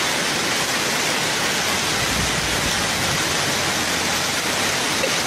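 Heavy downpour on a flooded street, with floodwater rushing along it: a steady, even hiss of rain and moving water.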